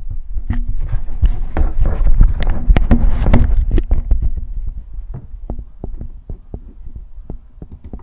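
Microphone handling noise from a handheld recorder as hands fit a headphone onto the foam block pressed against it: irregular knocks and clicks over a low rumble, busiest in the first half and thinning out after about four seconds.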